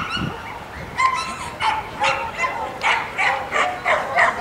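A dog barking repeatedly: a quick series of short, high-pitched barks, two or three a second, beginning about a second in.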